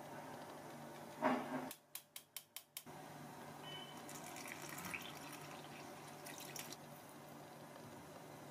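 A knock about a second in, then a quick run of about six sharp clicks. Later a thin stream of liquid pours into flour in a small ceramic bowl, followed by faint stirring with a spatula.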